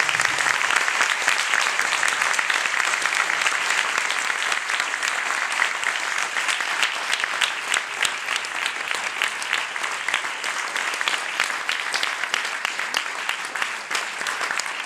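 Audience applauding: a dense, steady clapping of many hands that eases off slightly toward the end.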